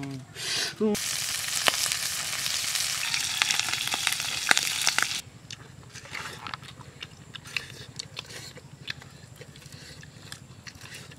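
Marinated chicken legs sizzling and crackling as they fry in a pan; the sizzle cuts off abruptly about five seconds in, leaving only faint scattered clicks and taps.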